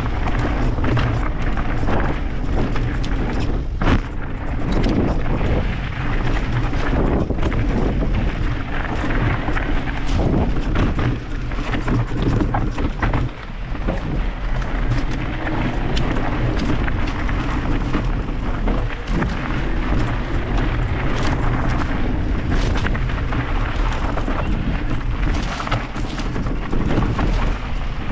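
Wind buffeting a mountain bike rider's camera microphone as a continuous low rumble, with frequent clatters and knocks from the bike rattling over rough dirt trail.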